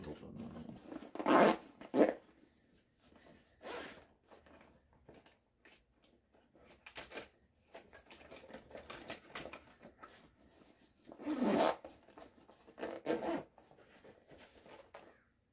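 Zippers on the pockets of a fabric tool roll bag being drawn open and shut in a series of short separate strokes, with pliers handled into the pockets. The loudest strokes come about a second and a half in and again around eleven seconds in.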